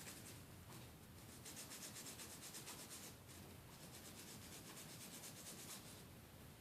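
Toothbrush scrubbing an iPod Classic's circuit board wet with isopropyl alcohol: faint, fast, scratchy brushing strokes with a couple of short pauses.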